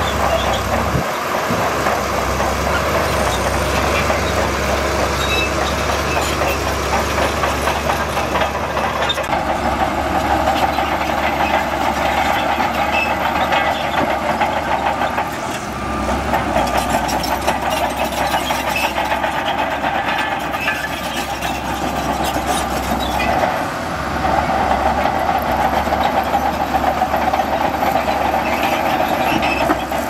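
Bulldozer diesel engine running steadily under load while pushing sand. Its low rumble dips briefly three times.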